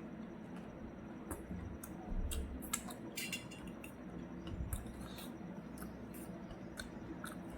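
Eating at a plate, close to the microphone: scattered small clicks and light clinks of cutlery against dishes, with a quick cluster of clinks about three seconds in and a few soft thuds.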